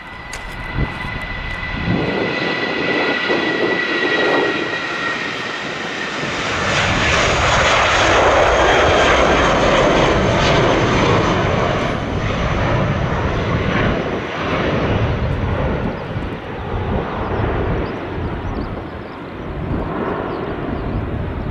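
Jetstar Airbus A320-family jet taking off: its engines at takeoff thrust through the roll, lift-off and climb-out. A thin high whine is heard at first, then the noise builds to a loud rush about eight to ten seconds in and slowly eases off as the jet climbs away.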